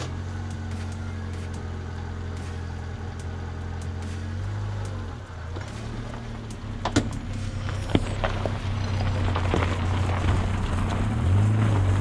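Fiat Panda 4x4 engine running at low revs as the car creeps down a stony slope, its pitch dipping and rising twice. Gravel crackles and pops under the tyres, growing louder as the car comes closer.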